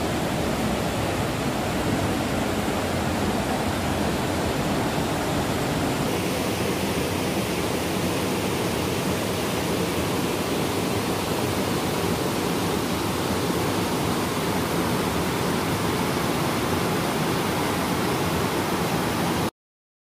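Jaldhaka river rapids: water rushing over boulders in a steady, even rush that stops suddenly near the end.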